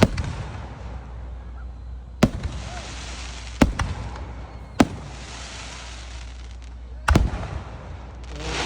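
Fireworks bursting overhead: five sharp bangs a second or two apart, some followed by a trailing crackling hiss.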